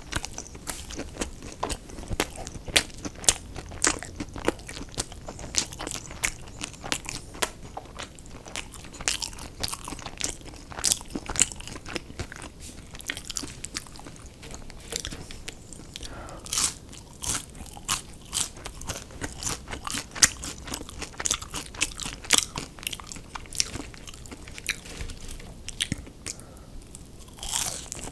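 Close-up eating: crunchy bites and chewing of fried fast food, with many sharp, irregular crunches.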